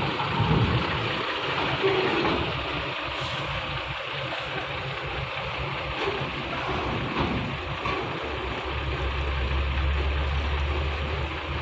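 Heavy diesel truck pulling a loaded tipper semi-trailer up the ramp into a ferry's vehicle deck, its engine running at low revs. A steady deep hum comes in about two-thirds of the way through.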